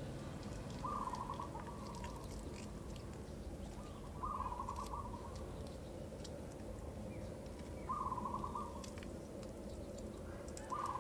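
A bird calling: a short, rapid trilled note repeated four times, about every three and a half seconds, over a low steady background noise.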